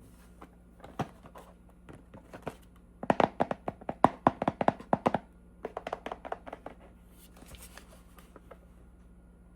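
Quick light taps and knocks of small objects being handled. They come in a fast run of about five a second in the middle, then a shorter run, with scattered taps before and after.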